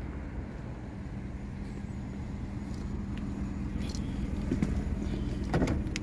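Car engine idling steadily, growing a little louder as it is approached, with a few sharp clicks near the end as the car door is opened.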